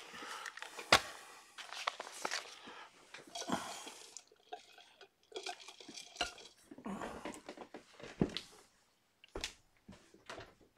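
Handling noise from a person pulling off corded headphones and getting up out of a chair: an irregular scatter of clicks, knocks and rustles, the loudest knock about a second in.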